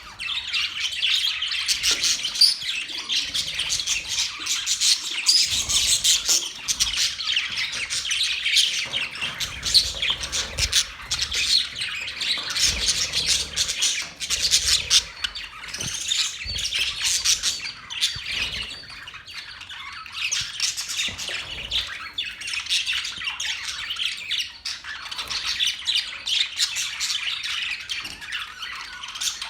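Parrots chirping and squawking in a dense, unbroken stream of short, high calls.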